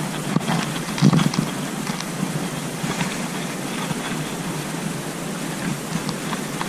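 Steady rushing wind noise on an outdoor microphone, with a few faint clicks or rustles, the strongest about a second in.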